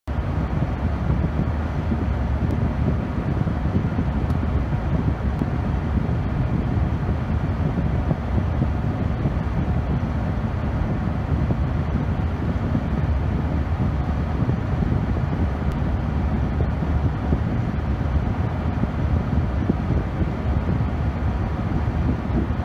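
Wind buffeting the phone's microphone: a steady, deep rumbling noise that flutters in loudness throughout.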